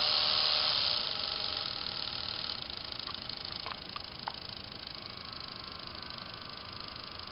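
Small Lego electric motors running with a steady whir that drops in loudness about a second in. A few light plastic clicks come around the middle.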